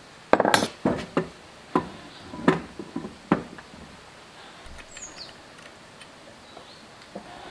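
A quick run of sharp metal clanks and knocks, about a dozen in the first three and a half seconds, from tools and cast-iron parts being handled while a small diesel engine is reassembled. After that only a few faint ticks.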